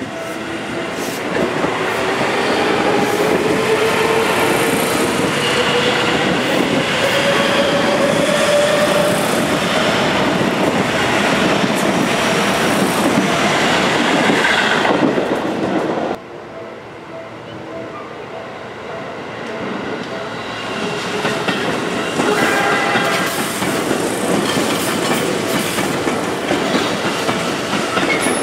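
Seibu 6000 series electric train passing close at speed, wheels clattering over the rail joints and its motor whine rising in pitch as it accelerates. About sixteen seconds in the sound cuts abruptly to a level-crossing bell ringing steadily as a second train, the red Seibu 9000 series, rolls past.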